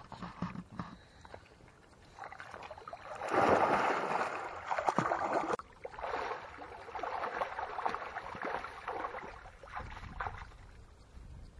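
Water splashing and sloshing as people wade and swim through shallow muddy water. It comes in uneven surges, the loudest just past the middle, with a brief break just before the last part.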